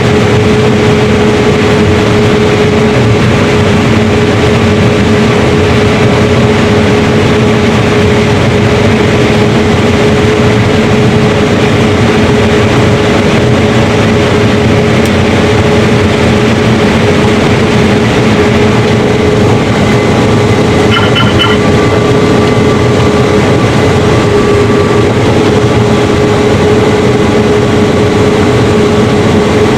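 Combine harvester running steadily while harvesting corn: a loud constant machine hum with a steady whine through it. About two-thirds of the way through, a short run of electronic beeps sounds briefly over it.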